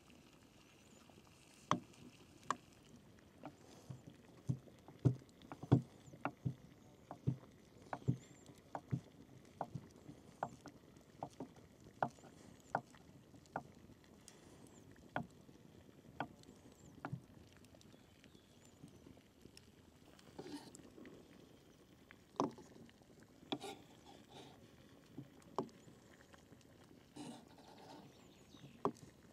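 A run of short, irregular knocks on a hard kitchen surface, about one or two a second, thinning out to occasional knocks about halfway through.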